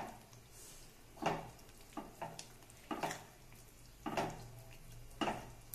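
A spatula stirring soya chunk curry in a thick masala gravy in a nonstick pan as it fries, scraping and knocking against the pan about once a second.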